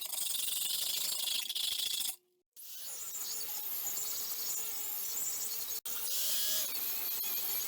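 Abrasive scraping and sanding on the surface of a rusty cast iron pan: a steady, hissy grinding noise that breaks off briefly about two seconds in and then resumes.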